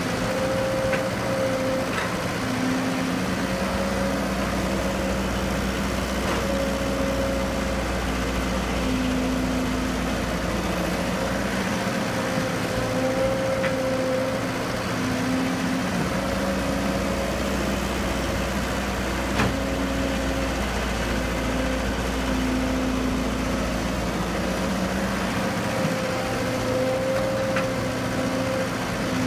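Excavator's diesel engine running under changing load, its note shifting every few seconds and a low rumble coming and going as the hydraulics work. A few sharp knocks are scattered through it.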